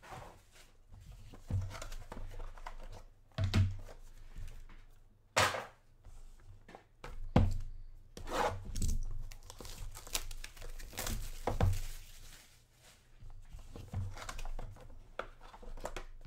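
Plastic wrapping being torn and crinkled off a sealed box of football trading cards, in irregular bursts, with low knocks as the cardboard box is handled.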